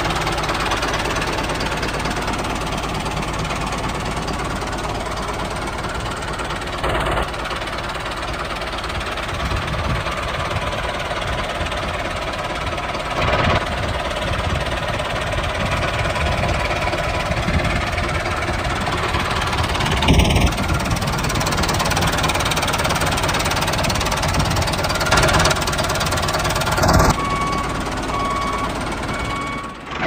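Tractor engine running steadily with a knocking beat, with a few brief knocks now and then; it cuts off abruptly at the very end.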